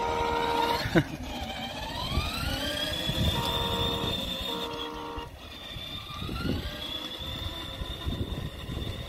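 Ride-on electric toy car pulling away: its electric drive motor and gearbox whine, rising in pitch as it speeds up, then holding steady. Short electronic tones from the toy's speaker sound at the start and twice more about three to five seconds in.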